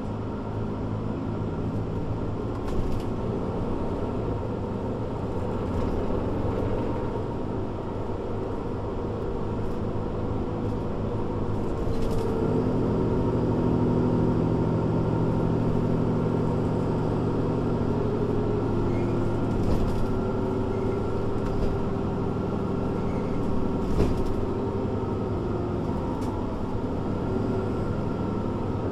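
Mercedes-Benz Citaro C2 G articulated bus engine running, its note shifting up and down as the bus pulls and slows, with a steady thin whine and a few short knocks.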